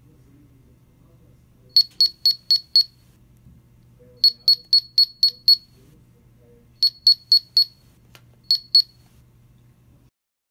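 Handheld security-taggant detector beeping in quick runs of short high beeps, about four a second: five, then six, then four, then two, signalling its readings of the plastic pellet sample.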